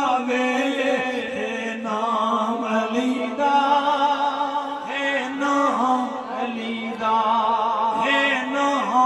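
A man's voice chanting a devotional verse in long, drawn-out held notes with a wavering pitch, through a microphone and loudspeaker.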